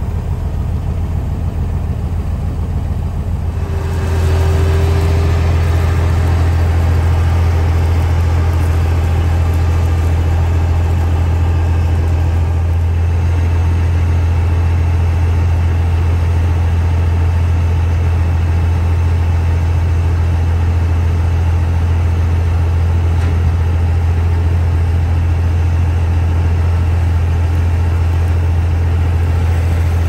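Steady low drone of a heavy farm machine's engine heard from inside its cab, stepping up in loudness about four seconds in and then holding even.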